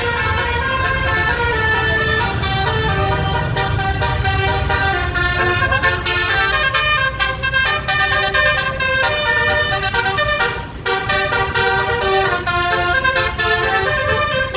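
Telolet basuri, a bus's 12-trumpet musical air horn, playing a tune of held notes that step from pitch to pitch over a low rumble, with a brief break about three-quarters of the way through.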